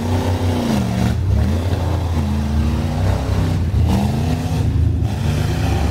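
Engine of an off-road mud buggy revving hard as it pushes through a deep mud pit, its pitch climbing and falling about four times over a steady low drone.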